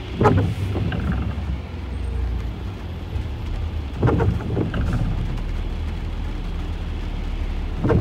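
Car windscreen wipers sweeping on an intermittent setting, three swishes about four seconds apart, over the steady low hum of the idling engine and rain on the glass.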